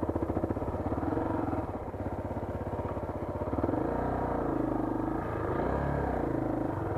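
Motorcycle engine running steadily with a fast even pulse; from about halfway through, its pitch falls and rises several times as the throttle changes.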